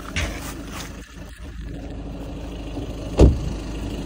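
Car engine idling steadily, with a few light clanks in the first second and one short, loud bang a little after three seconds in.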